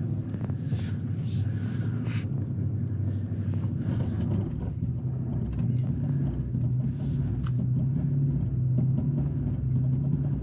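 Infiniti QX80's 5.6-litre V8 running steadily under load on a steep rocky climb with traction control on, the truck only inching forward. A few short scrapes from the tyres and rocks come through in the first half, and the engine note shifts a little higher about halfway through.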